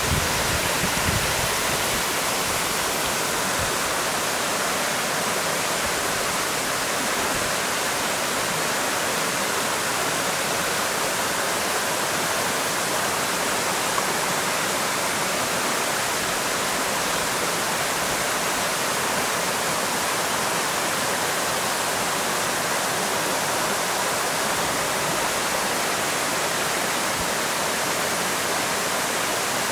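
Steady rushing of running water, like a forest stream, holding an even level throughout.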